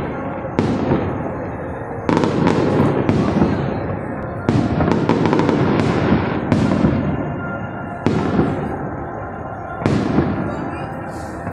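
Aerial fireworks going off, about a dozen bangs at uneven intervals of half a second to two seconds, each fading away after it.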